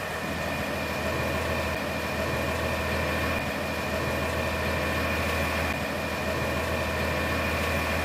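Concrete mixer truck's diesel engine idling steadily, with a thin steady high whine running above the low engine hum.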